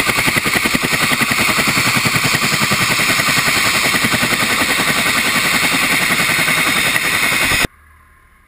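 Helicopter running on the ground at close range, its rotor beating in a rapid, steady chop. The sound cuts off suddenly near the end.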